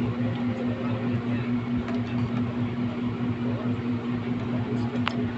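A steady low mechanical hum with a constant tone, and a single sharp click about five seconds in.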